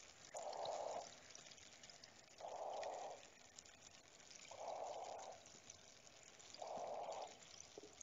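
Faint cave-water ambience: fine dripping and trickling, with a soft pouring rush that swells up four times, about every two seconds.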